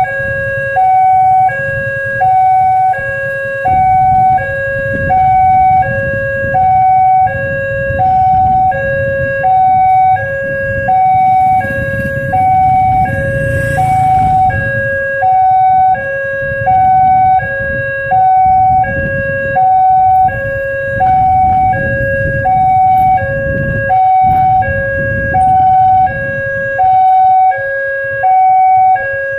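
Electronic warning siren of a railway level crossing sounding a steady high-low two-tone pattern, each tone about half a second. This warns that a train is approaching. Road traffic rumbles underneath.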